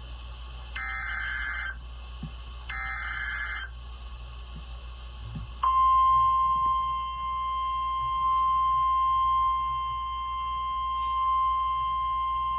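NOAA Weather Radio EAS alert tones: two roughly one-second bursts of screeching digital header data separated by radio hiss, then, about five and a half seconds in, the steady 1050 Hz warning alarm tone starts abruptly and holds. The sequence announces a new tornado warning message.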